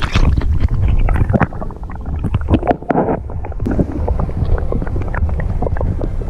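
Lake water sloshing and bubbling around an action camera dipped at and below the surface: a low rumble with many small crackles, sounding muffled once the camera is under.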